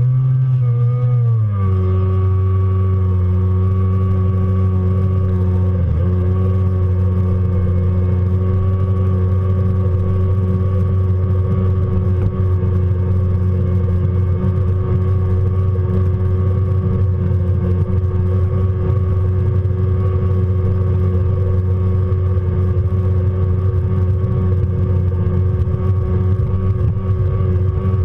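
Stand-up jet ski's engine running at speed. Its pitch wavers in the first couple of seconds, then holds steady at high revs.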